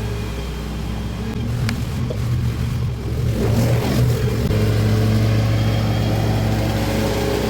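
Petrol lawn mower engine running steadily, its note wavering for a few seconds in the middle before settling back to an even hum. A sharp click comes about two seconds in.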